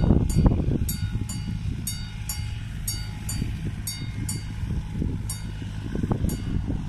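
Level-crossing warning bell ringing in rapid, even strikes about twice a second as the barriers begin to lower: the crossing closing for an approaching train. A strong, uneven low rumble runs underneath.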